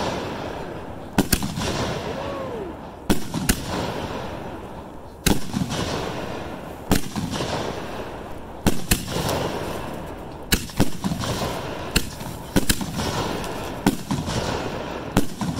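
Raccoon Fireworks Peacock Spider 60-gram canister-shell cake firing its shots. Sharp bangs come about every one and a half to two seconds, often in close pairs, as the shells launch and burst.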